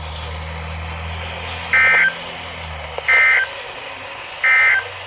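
Emergency Alert System end-of-message code on NOAA Weather Radio: three short, identical bursts of SAME digital data, each a warbling two-tone screech about a third of a second long, sent about a second and a half apart over faint radio hiss and hum. They mark the end of the severe thunderstorm warning broadcast.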